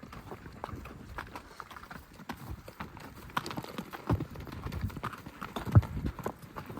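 Hooves of horses being ridden over open ground, an uneven run of clip-clopping hoofbeats, with one heavier thud near the end.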